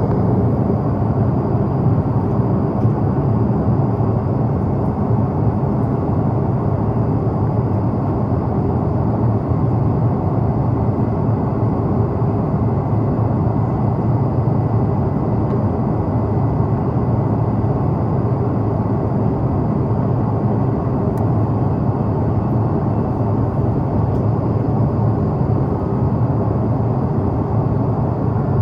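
Steady cabin noise inside an Airbus A330-300 airliner in flight: an even, unchanging rumble of engines and airflow, with a faint high whine.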